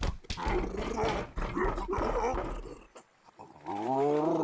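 Cartoon wombat-hog creature's call: a long pitched bellow that rises and then falls, starting near the end. Before it come jumbled, voice-like creature sounds.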